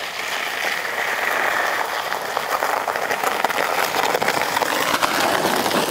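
Plastic sled scraping over icy packed snow: a crackling hiss that grows louder about a second in as the sled comes closer, then holds steady.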